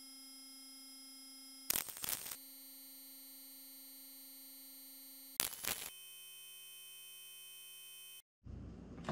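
A faint, perfectly steady electronic buzzing tone that jumps to a new pitch twice, the second time lower. Each jump comes with a brief burst of noise, and the tone cuts off shortly before the end.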